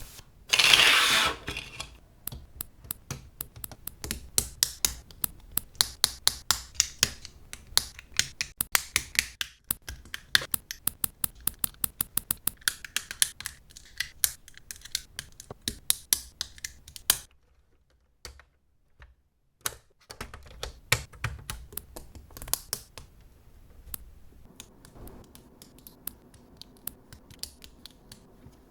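Plastic building-brick parts of a Mould King rotary engine model being snapped and pressed together by hand: many sharp clicks at an uneven pace. A brief loud rustle about a second in, and a pause of a couple of seconds a little past the middle.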